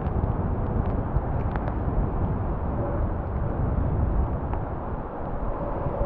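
Wind buffeting the microphone in a steady low rumble, with faint distant noise from an ATR 72-600 turboprop airliner's engines under it.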